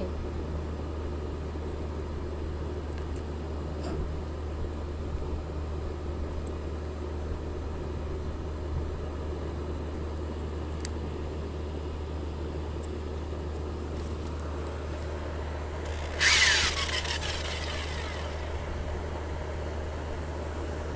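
Small electric motor spinning a canvas for spin-art painting, running steadily with a low hum. About sixteen seconds in there is a short louder noisy burst.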